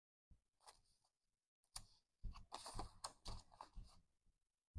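Paper banknotes being fanned and sorted by hand: faint, crisp rustling and crinkling with small clicks. It starts and stops a few times and is busiest in the second half.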